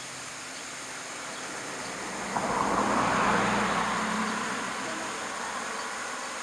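A vehicle passing nearby: its noise swells sharply a couple of seconds in, peaks about a second later and fades away slowly, over a steady outdoor hiss.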